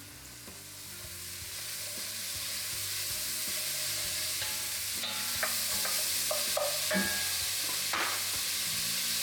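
Chopped onion, red bell pepper, jalapeño and celery sizzling in hot olive oil, the sizzle growing louder over the first few seconds as the pan heats. A few sharp knocks of a utensil against the pan come later, a second or two apart.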